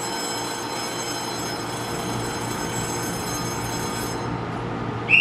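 Nippon Sharyo TEMU2000 Puyuma tilting electric multiple unit standing at the platform, its onboard electrical equipment giving a steady hum with several faint, steady high whines. A shrill whistle starts right at the end.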